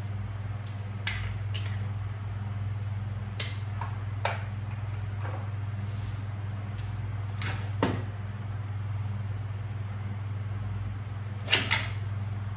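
A steady low electrical hum, with scattered sharp clicks and light taps from handling things; the loudest is a quick pair of clicks near the end.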